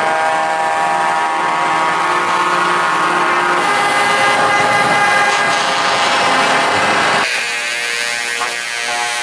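Truck air horns sounding a steady multi-note chord that stops about four seconds in, followed by the noise of heavy trucks driving past. Near the end the sound changes abruptly to a quieter engine sound.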